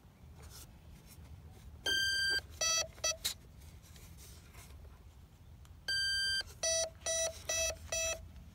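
Electronic speed controller of an E-flite 64mm ducted-fan F-16 beeping its start-up tones through the fan motor as the flight battery is connected. A long higher beep is followed by two short lower beeps, and about four seconds later the sequence comes again: a long beep, then four short lower beeps.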